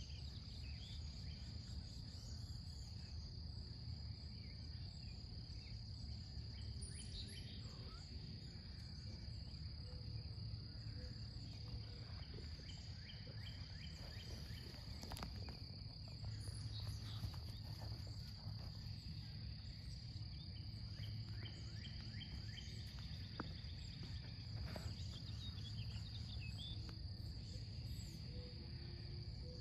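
Insects trilling in one continuous high note over a steady low rumble, with a few faint bird chirps.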